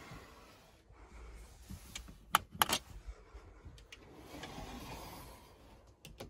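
Closet handling noises: soft rustling of hanging clothes, a few sharp clicks about two and a half seconds in, and a couple of quick clicks near the end as the hinged closet door is swung.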